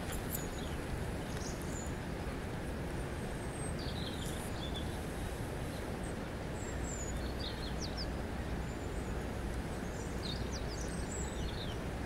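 Steady rushing of river water over stones, with faint, short, high bird chirps scattered through it.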